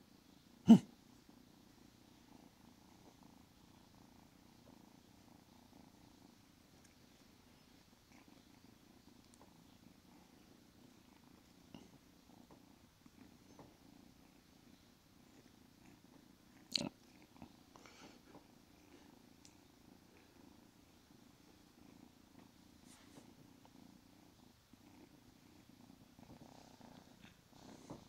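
Siamese kitten purring steadily while handled. A sharp knock sounds under a second in, the loudest thing here, and another about 17 seconds in.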